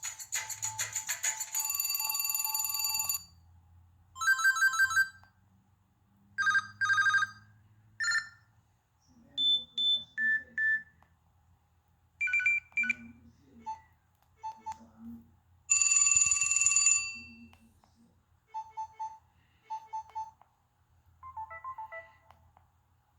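An LG 430 phone playing a run of short preloaded electronic ringtones one after another: brief beeps and chirps at changing pitches and two buzzing tones of about a second and a half, with short pauses between them.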